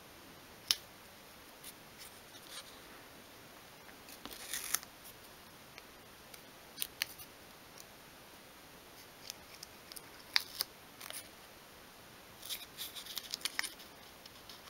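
Paper masking tape being handled and pressed down by fingers around a small wooden model boat hull: scattered faint crackles and rustles, with a denser run of them near the end.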